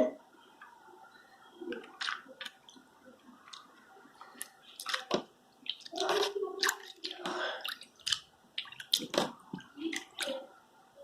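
A hand squelching and stirring deactivated Jiggly Slime that has turned watery, making irregular wet squishes and small splashes.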